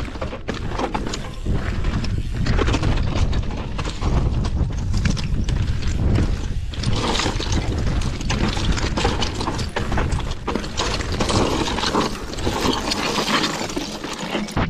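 Mountain bike rattling over a stony trail: tyres crunching on loose rock and the frame and chain clattering in quick irregular knocks. Wind rumbles on the microphone throughout.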